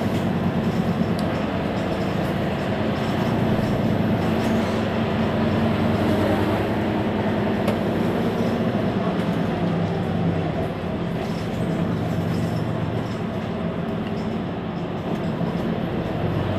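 Mercedes-Benz Citaro C2 Hybrid articulated city bus idling at a stop, a steady engine drone.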